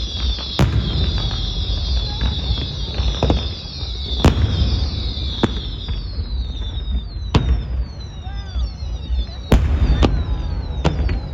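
Fireworks bursting: a sharp bang every second or so over a dense high crackling hiss, which thins about halfway through into separate short falling whistles.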